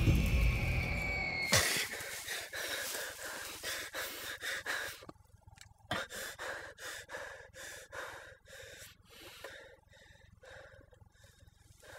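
A loud high tone falls slightly and cuts off abruptly about a second and a half in. Then a man breathes hard in short gasps, the breaths growing fainter.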